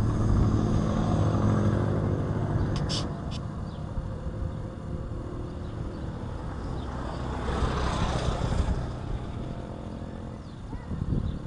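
A motor vehicle's engine passing, its low hum fading away over the first few seconds. A second swell of rushing noise builds and fades about eight seconds in, and a few short high chirps come about three seconds in.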